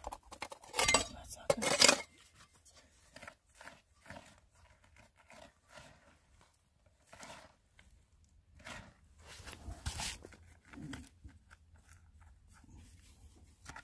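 Rocks and gravel being scraped, crunched and clinked as a crevice is dug out by hand, in scattered short scrapes and knocks, loudest in a burst about one to two seconds in.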